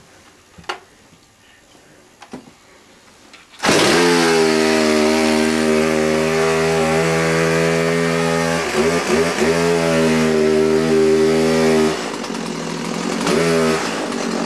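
Two-stroke gasoline chainsaw running, coming in abruptly about four seconds in after a few faint clicks. Its pitch dips briefly a couple of times in the middle, and it drops in level near the end.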